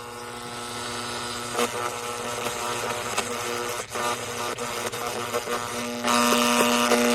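Transistor radio tuned between stations: static hiss and buzz with steady whining tones and a few crackles. About six seconds in it grows louder and buzzier, with a strong low hum, as it nears a station.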